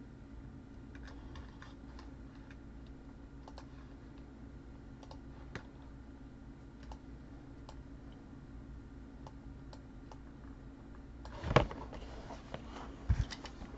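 Faint typing on a computer keyboard: sparse, scattered clicks. About eleven seconds in comes a louder rustling scrape of packaging being handled, with a few more short rustles near the end.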